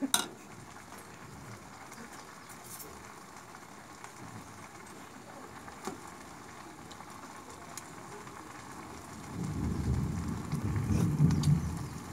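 Instant noodles frying in a wok on a gas stove: a steady sizzle with a few light clicks of a metal spatula. About nine seconds in, a louder low rumbling comes in over it.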